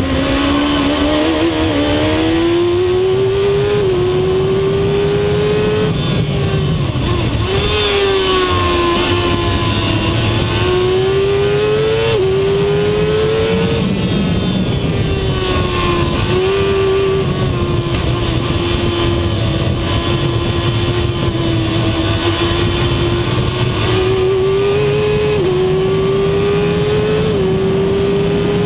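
Shortcar racing car's engine at race speed, heard from its open cockpit: the pitch climbs through each gear with several sudden drops at upshifts, and falls and recovers where it eases off for corners, over steady wind and road noise.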